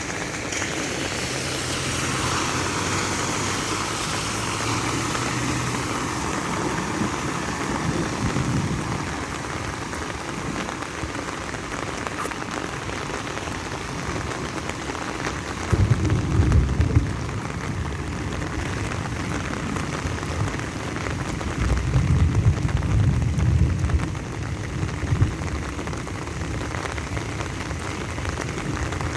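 Steady rain pattering on the ground and surfaces. Two spells of low rumbling come through the rain, one a little past halfway and a longer one near the end.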